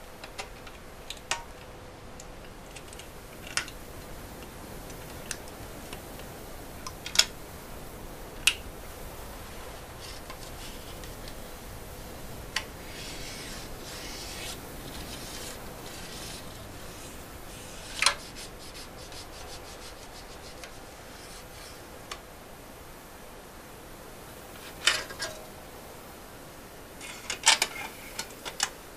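Thin metal foil being rubbed, pressed and crimped into shape by hand, with scattered sharp crackles and clicks and a stretch of denser rubbing in the middle. A quick cluster of crackles comes near the end as the foil panel is pressed into place.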